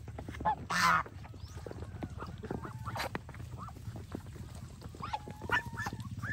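Domestic geese and ducks calling while they feed, with one loud, harsh call about a second in and shorter calls later, over many short clicks.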